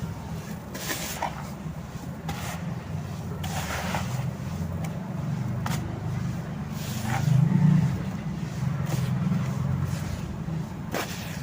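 Hardened sand-and-cement pieces crumbling in short, scattered crunches over a steady low rumble that swells briefly about two-thirds of the way through.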